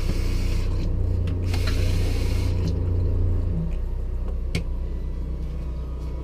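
Water rushing from an RV tap and sputtering with air in the line while the water pump runs. The flow breaks up and stops about two and a half seconds in. The pump cuts out about a second later, leaving a steady low generator hum, with a single click near the middle.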